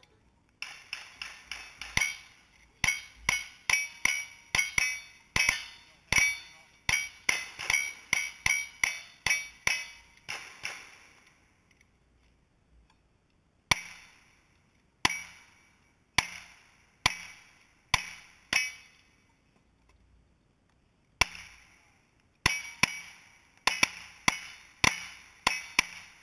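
Gunfire from cowboy action shooters' single-action revolvers and lever-action rifles firing at steel targets. A fast string of shots at about three a second runs for the first ten seconds, each shot with a short echo. After a pause come six more shots, and after a second pause a final string of about eight.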